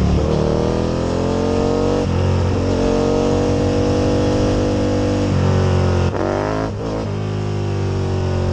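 Aprilia RSV Mille's V-twin engine pulling hard under racing acceleration, its note climbing in pitch and breaking at gear changes about two and five seconds in. Two brief dips in the note around six and seven seconds come before it pulls again.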